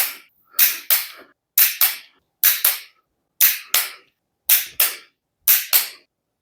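Torque wrench clicking over as each cylinder head bolt of a Toyota 5K engine reaches 29 foot-pounds. The clicks come in sharp pairs, about one pair a second.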